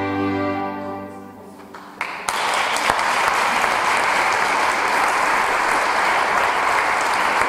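A string orchestra's last held chord dies away over about two seconds. Then the audience breaks into steady applause, which continues.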